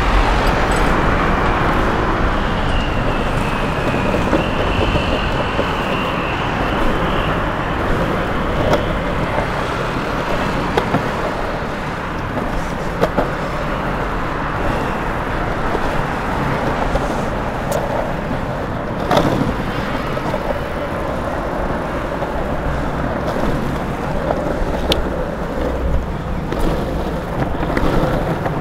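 Longboard wheels rolling over asphalt in a steady rumble, with a few sharp clacks, mixed with passing road traffic.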